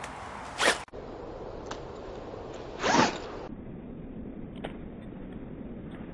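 A jacket's zip being pulled along its teeth in two quick strokes, about half a second and three seconds in, with a few small clicks of the slider between.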